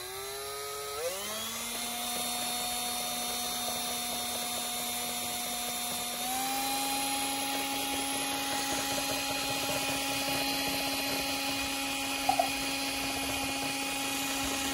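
Drill with a paddle mixer stirring metallic epoxy in a plastic mixing container. The motor whine rises as it spins up at the start, steps up in speed about six seconds in, then runs steady.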